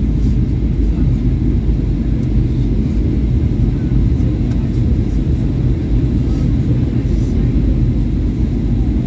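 Steady low rumble inside the cabin of a Boeing 737-800 on approach to land, heard from a window seat beside the wing: the noise of its CFM56-7B engines and the airflow over the fuselage.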